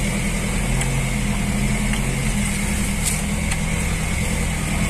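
Off-road jeep engine running steadily, heard from inside the vehicle as it crawls along a rough dirt track.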